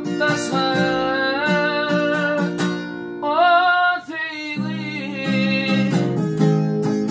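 A man singing over a strummed acoustic guitar, his voice wavering on the held notes. The singing breaks off briefly about four seconds in while the guitar carries on.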